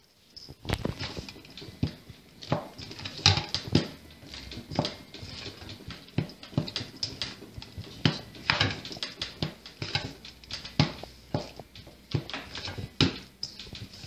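Hands kneading a flour, butter and egg dough in a stainless steel bowl: irregular squishing and slapping strokes, a couple a second, as the dough is pressed and turned against the metal.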